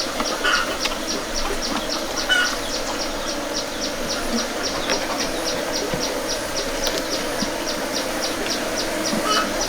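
Bees buzzing in a steady hum, over a rapid, regular high pulsing chirp at about four a second from an insect. A few short bird chirps come near the start, a couple of seconds in, and near the end.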